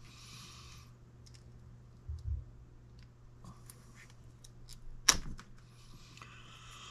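Faint clicks and light scraping as the bezel ring is worked off a 1964 Ford 4000 tractor's oil pressure gauge by hand, with one sharp click about five seconds in.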